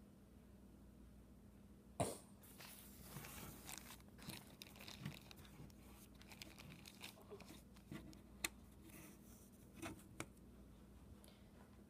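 Faint handling noises: a sharp knock about two seconds in, then a couple of seconds of rustling, and a few scattered clicks later on.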